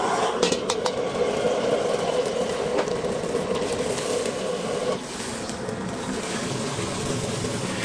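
Wok cooking on a high-heat stove: broth boiling with a steady rushing sound, and a few sharp clinks of the metal ladle against the wok. The level drops suddenly about five seconds in.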